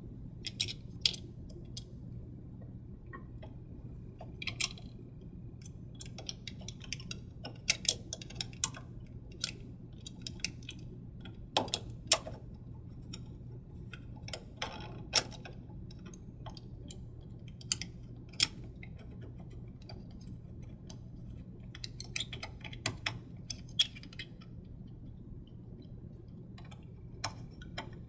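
Small metal clicks and taps at irregular intervals as an Allen wrench and screws are worked to fasten a printhead to its metal mount.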